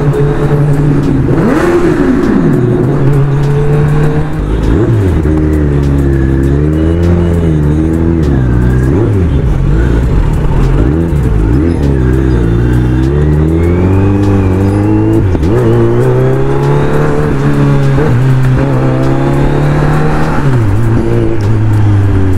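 Kawasaki Z900's inline-four engine under way on the road, its pitch rising and falling again and again as the throttle is opened and closed, with a marked drop a few seconds in.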